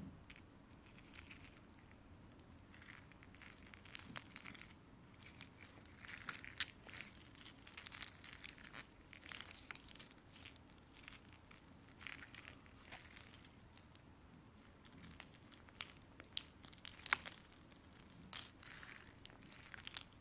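Clear slime being pressed, stretched and folded by hand, giving many small irregular clicks and crackles, with one sharper pop about two thirds of the way in.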